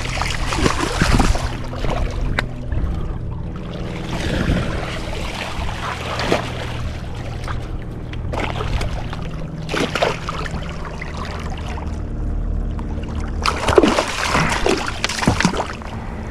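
Water splashing in several irregular bursts as a big freshwater drum is landed, over a steady low hum.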